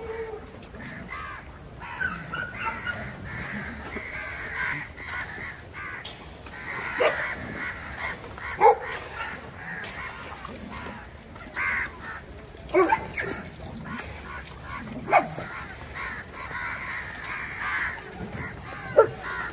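Stray dogs barking and yelping in short, sharp calls, about six times, while they are fed.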